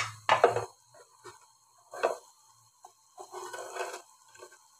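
Steel ladle stirring and scraping a simmering masala in an aluminium pot, with a few knocks against the pot. The strokes come separately: a couple at the start, one about two seconds in, and a longer scrape around three to four seconds in.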